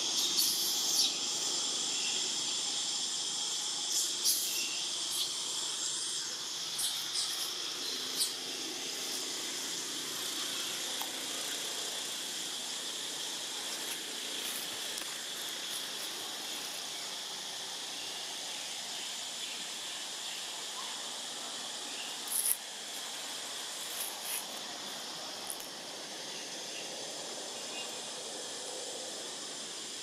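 Steady, high-pitched insect chorus, a little stronger in the first few seconds, with a few short clicks now and then, the sharpest about two-thirds of the way through.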